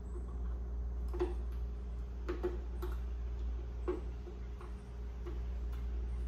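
Scattered light clicks and ticks of small fuel-pump parts being handled and fitted together as the float is assembled. They come at irregular intervals over a steady low hum.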